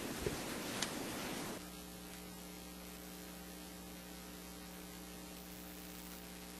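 Low steady electrical hum in the recording. For the first second and a half it sits under a hiss with a couple of faint clicks; the hiss cuts off suddenly, leaving the hum on its own.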